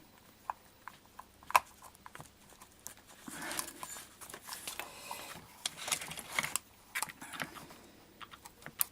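Hands working on the radio's copper shielding tape and chassis parts: scattered light clicks and taps, with stretches of rustling and crinkling about three and a half seconds in and again around six seconds in.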